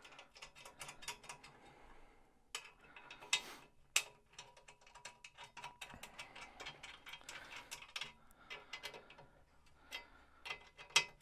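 Spanner tightening the bolts that hold an exercise bike's mast to its steel frame: a run of quick, irregular metal clicks and ticks, several a second, with a few louder clacks among them.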